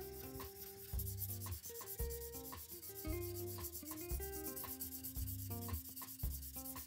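Hand sanding of a steel knife blade: an abrasive stick rubbed back and forth along the blade in repeated strokes, polishing the steel. Background music with a steady beat plays under it.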